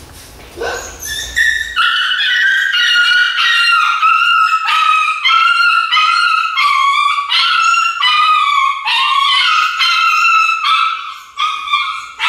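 Puppy squealing and yelping in a rapid run of high-pitched cries, about two a second, while held on its back against its will. The cries start about a second and a half in and carry on almost without a break.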